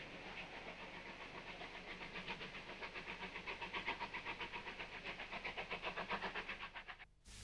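Steam locomotive pulling away under power, its exhaust beating in a fast, even rhythm that grows a little louder before cutting off abruptly shortly before the end.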